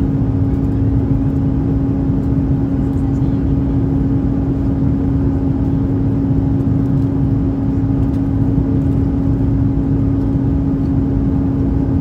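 Steady cabin noise of an Airbus A330-300 in flight: a constant rumble of airflow and engines with a steady hum.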